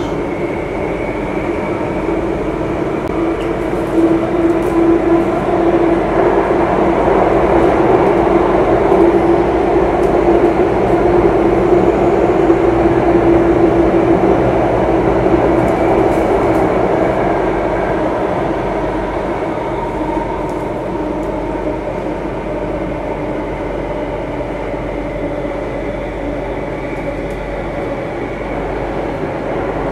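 Singapore MRT Circle Line train running between stations, heard from inside the passenger car: a steady rumble of wheels and running gear with a humming tone that swells about four seconds in and eases off after about fifteen seconds.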